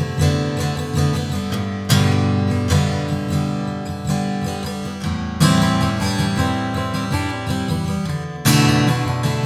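A 1962 Gibson J-45 round-shoulder acoustic guitar playing strummed and picked chords that ring out. There are hard strummed accents about two, five and a half, and eight and a half seconds in, with lighter strokes in between.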